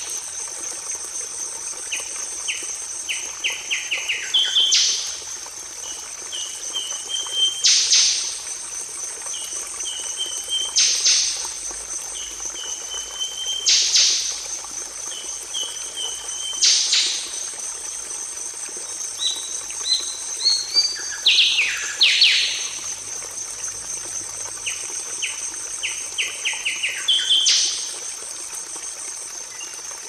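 Songbird singing a repeated loud downward-sweeping whistle about every three seconds, with runs of short chipping notes between them. Under it runs a continuous high-pitched insect trill.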